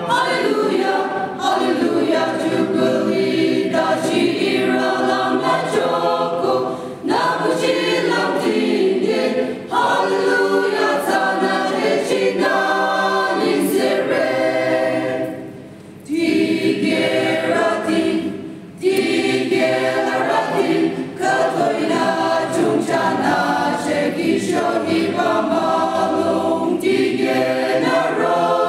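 A choir of mostly women's voices singing a cappella, in long phrases with brief breath pauses between them, the longest about halfway through.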